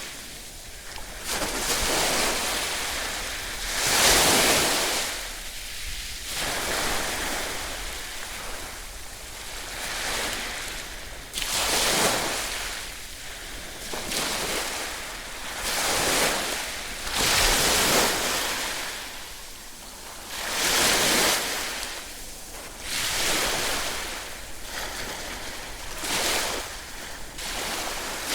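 Ocean waves breaking and washing on the shore, a hissing surge every two to three seconds that swells and fades.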